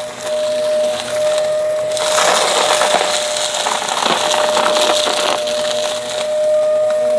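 Vacuum cleaner running with a steady motor whine while it sucks up crunchy dry debris, which crackles in irregular surges.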